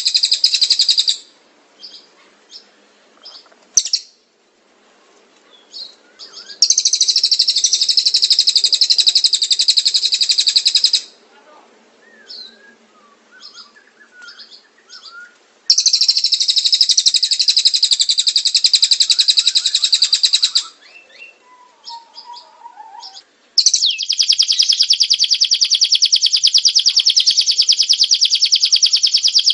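Songbird recording of a crested jay (cililin) and a canary: four long, loud, very rapid high-pitched trills of about four to five seconds each, separated by softer scattered chirps and short notes.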